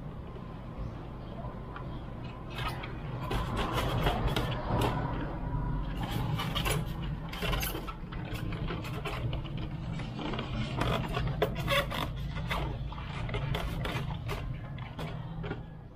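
A plastic RC transmitter being handled and pressed into a foam packaging tray: scattered clicks, knocks and scrapes over a steady low hum.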